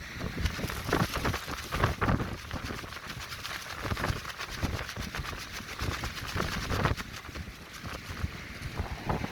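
Clear plastic tent sheeting flapping and crackling in strong, gusty wind, with wind buffeting the microphone. Louder gusts come in the first two seconds and again about seven seconds in.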